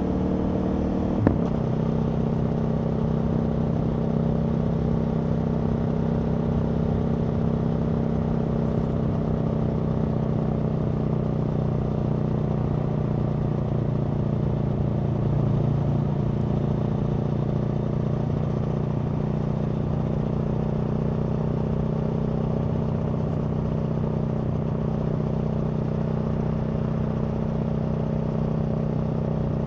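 Aprilia Tuono V4 motorcycle's V4 engine being ridden, its note falling as the revs drop in the first second, with a single sharp click about a second in. It then holds steady revs while cruising.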